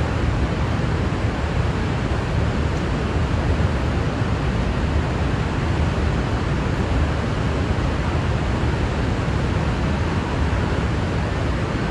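Steady rushing noise, heaviest in the low end, with no distinct events.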